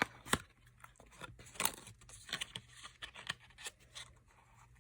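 Hands handling skincare packaging at close range: a string of light clicks, taps and rustles, the sharpest right at the start and a second or so in.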